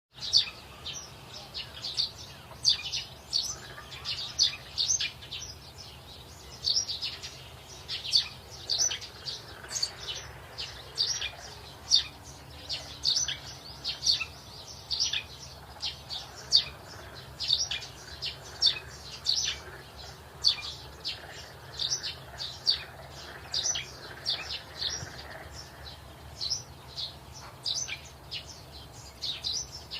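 Small birds chirping continuously: short, high chirps, two or three a second, over a faint low hum.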